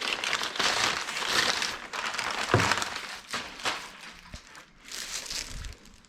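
Packaging crinkling and rustling as parts are unwrapped and handled, busiest in the first half and dying away near the end, with a couple of light knocks.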